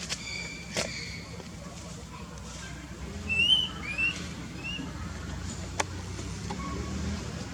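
Baby monkey's high, whistle-like calls: one held call in the first second, then three short calls that bend up and down about halfway through, with a few sharp clicks over a low background rumble.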